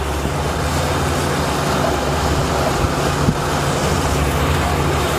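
Outboard motor running steadily at slow trolling speed, a low even drone under the hiss of wind and water rushing past the hull.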